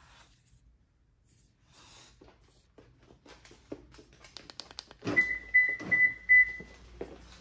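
A 2022 Lexus RX350L answering a press of its smart key fob: a clunk of the door locks about five seconds in, then four short high beeps from the car. Light clicks and handling of the fob come before.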